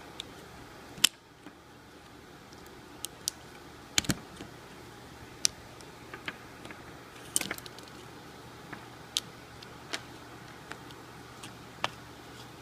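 Scattered sharp clicks and taps as a brushless motor ESC is handled and pried open, about a dozen at irregular intervals. The loudest comes about a second in. A steady faint hiss lies underneath.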